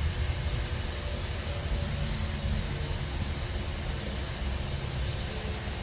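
Automotive paint spray gun hissing steadily as paint is sprayed onto a bumper, over a steady low rumble.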